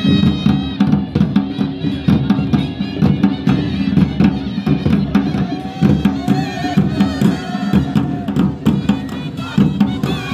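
Himachali folk drum ensemble playing a fast, steady rhythm. Barrel drums and a kettle drum are beaten with sticks.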